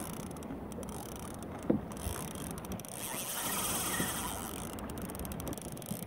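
Diamond Reel Comet No.G1 inner-spool spinning reel clicking rapidly for about two seconds midway, with one short knock about a second and a half in.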